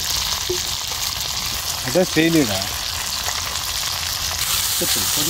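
Masala-coated fish frying in hot oil: a steady sizzle.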